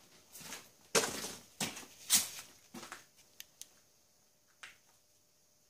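Several short scraping strokes, roughly a second apart, then a few small clicks.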